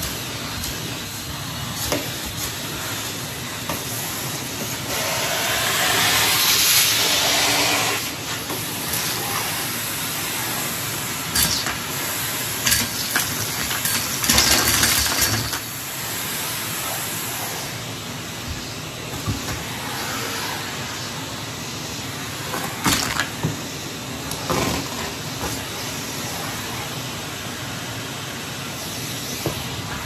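Numatic Henry cylinder vacuum cleaner running with a steady hiss through its bare metal wand. It gets louder for a couple of seconds about five seconds in and again around fourteen seconds. Several sharp clicks and rattles come as Lego bricks are sucked up the wand.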